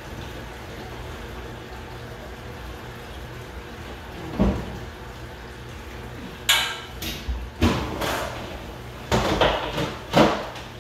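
Clothes being loaded into a top-loading washing machine: a thump about four seconds in, then a string of sharp knocks and clatters from the machine and a plastic laundry basket being handled, over a steady low hum.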